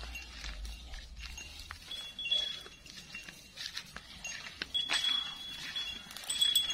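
A small metal bell tinkling over and over, louder in the last couple of seconds, over rustling brush and twigs snapping as elephants move and browse through dry scrub.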